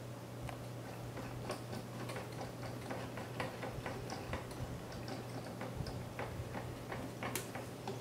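Light, irregular metallic clicking and ticking as fingers handle and turn a knurled thumb nut on one of the mounting screws of a Koolance CPU-370 water block.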